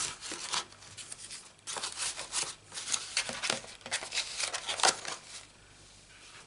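Crinkling and rustling of a clear plastic sheet being handled, a quick run of irregular crackles that stops about five seconds in.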